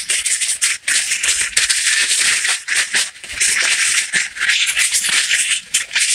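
Paper towel rustling and rubbing in quick, irregular strokes as an engine main bearing shell is wiped clean.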